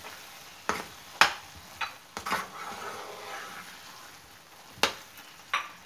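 A spatula scraping and knocking against a frying pan as a thick masala is stirred, with a faint sizzle of frying underneath. There are a handful of separate scrapes, about a second apart early on, and a sharper one near the end.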